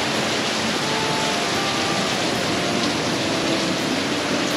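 Steady rain falling a little harder, an even hiss with no breaks.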